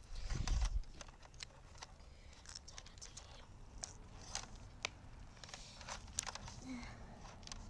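Small scattered clicks and taps of plastic parts being handled and pried at on a remote-control car, with a low thump about half a second in.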